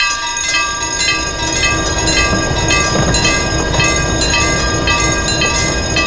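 Several railroad crossing warning bells ringing together in a steady, repeating rhythm, over the low rumble of a train passing the crossing.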